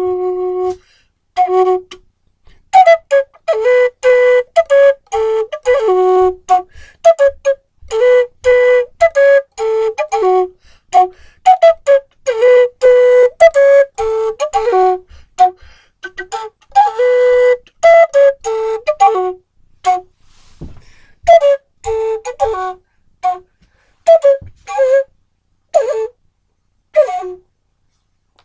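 A melody of short, separate notes played on an end-blown flute, in a few phrases with brief pauses between them.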